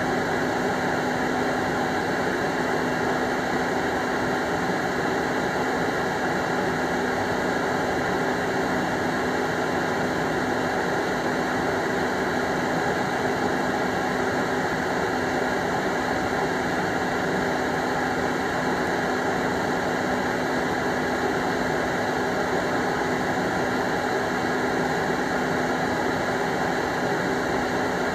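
Cordless leaf blower running steadily, forcing air through a clothes dryer duct to blow the lint out: an even rush of air over a constant motor hum.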